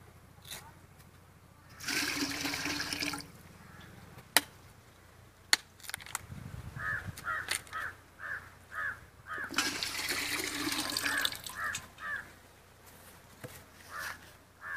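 Tender coconut water pouring from freshly opened green coconuts and splashing into an aluminium pot, in two pours, with a couple of sharp machete chops into a coconut between them.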